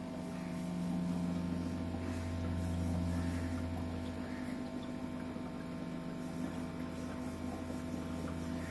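Aquarium equipment humming steadily at a low pitch, growing louder for a few seconds about a second in.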